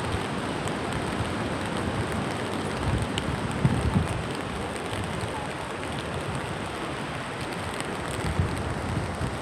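Steady rain falling: a dense, even hiss with faint drop ticks and a low rumble that swells briefly about four seconds in.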